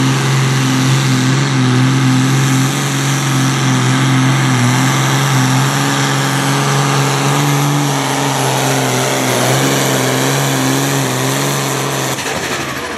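Oliver 1855 pulling tractor's diesel engine running flat out under heavy load as it drags the weight-transfer sled, holding a steady high note. The note drops away about twelve seconds in as the pull ends.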